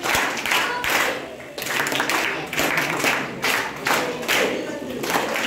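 Hand clapping from a gathered group, uneven and in bursts, with voices mixed in.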